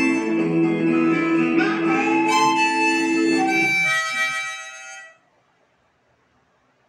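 Harmonica played in the player's cupped hands, sounding several notes at once with one note sliding in pitch about two seconds in; the playing stops about five seconds in.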